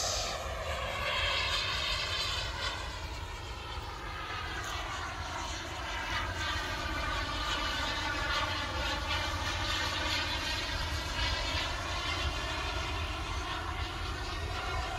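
The miniature turbine jet engine of a radio-controlled T-45 model jet, whining steadily as the model flies overhead. Its pitch slowly falls and rises as the model passes.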